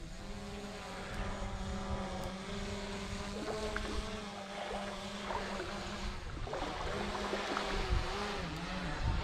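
Boat's outboard motor running steadily at low speed, its pitch wavering briefly near the end, with wind buffeting the microphone.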